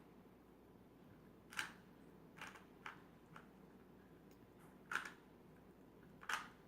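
Rubik's Cube faces being turned by hand: a handful of short plastic clicks at irregular intervals, about six in all, the sharpest about five and six seconds in.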